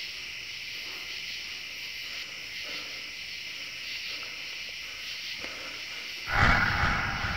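A steady, high, thin hiss, then a sudden loud low boom about six seconds in that fades away over a second or so.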